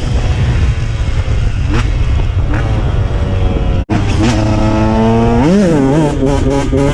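KTM 125 EXC two-stroke enduro motorcycle engine running under throttle, its pitch climbing and dropping with the revs. There is a sudden break about four seconds in. Near the end comes one quick rev up and back down.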